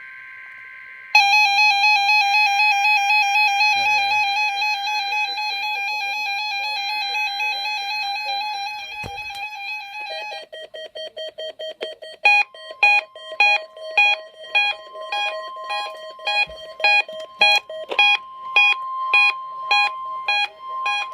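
Emergency Alert System weekly test coming over a NOAA Weather Radio receiver. Screechy two-tone data bursts are followed about a second in by a loud warbling electronic alert tone. About ten seconds in, the sound changes to a steady tone and then rapid electronic beeping, about two beeps a second.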